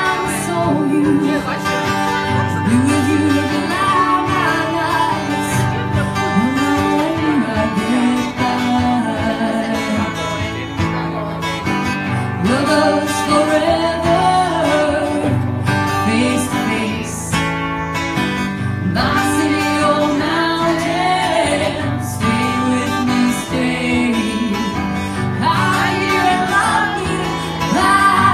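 A woman singing a song live while strumming a guitar, amplified through the venue's PA, in a country-folk style.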